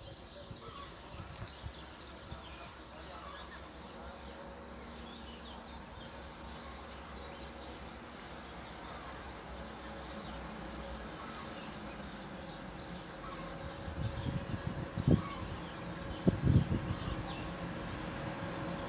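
Approaching train heard from a distance: a faint steady hum and whine that grows gradually louder, with a few short thumps in the last few seconds.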